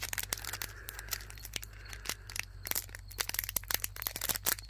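Foil wrapper of a Pokémon trading-card booster pack crinkling and tearing as fingers pick at its top to open it: a rapid, irregular run of small crackles.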